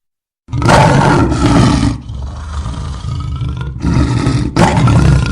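A lion roaring: after half a second of silence a loud roar begins, then eases off, and further loud roars come about four and five seconds in.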